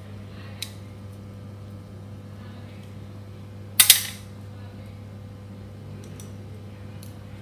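Light metallic clicks from a Shimano freehub body being worked with a steel pick around its pawls, with a sharp double metal clack about four seconds in and a few fainter ticks after.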